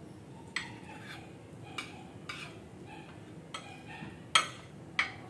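Spoons and forks clinking and scraping on plates and bowls while people eat: a handful of short, sharp clinks, the loudest about four seconds in.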